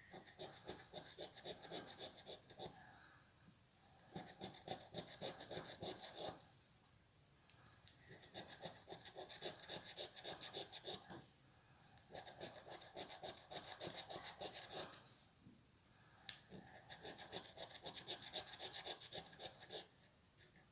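A coin scratching the silver coating off a Gratta e Vinci '10X' paper scratch card in quick back-and-forth strokes. It comes in five short bouts with brief pauses between them.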